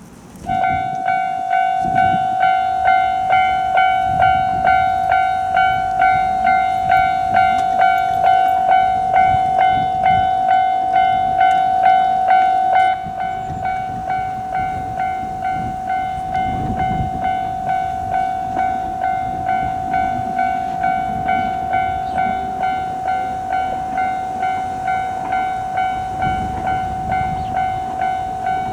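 Japanese railway level crossing warning bell ringing its repeated "kan-kan" at about two strikes a second. It drops somewhat in loudness about halfway through, and there are low rumbles underneath at times.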